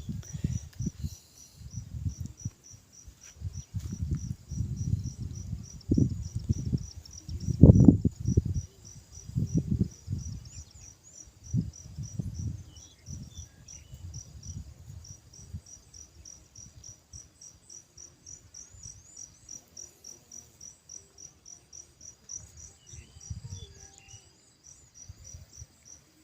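Insects chirping steadily in a high, fast pulsing rhythm, several chirps a second. Under it, irregular low thuds and rustling, heaviest in the first half and loudest about eight seconds in, then fading.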